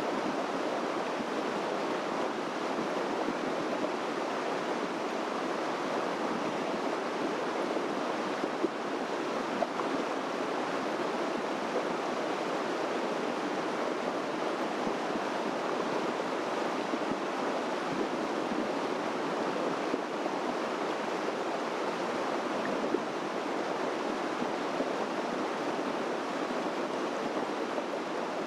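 Mountain creek running with a steady, unbroken rush of water.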